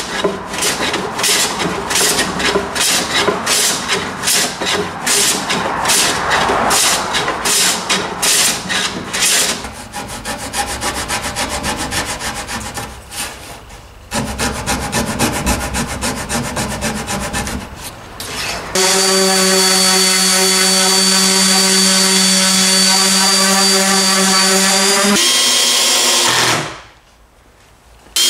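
Hand tool stroked rapidly back and forth along a pine board edge, about two strokes a second, then the rasping strokes of a flush-cut pull saw trimming wood flush. About two-thirds of the way through, a power tool starts and runs at a steady pitch for several seconds, stops, and starts again near the end.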